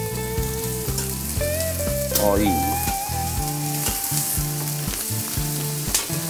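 Chicken thighs and squid sizzling on a hot barbecue grill grate, with metal tongs clicking now and then as the meat is turned. Background music plays under it.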